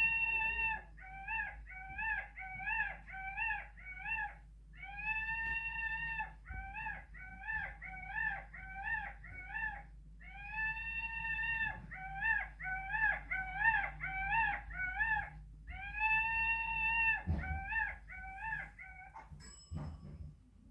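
A recorded dog whining-and-yipping call playing from a TV speaker: a long held note, then a quick run of six or seven short yips. The phrase repeats four times, about every five seconds.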